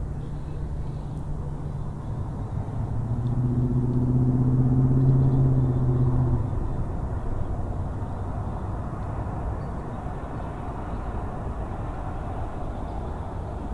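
Distant engine drone, a low steady hum that swells about three seconds in and drops away after about six seconds, over a constant low rumble.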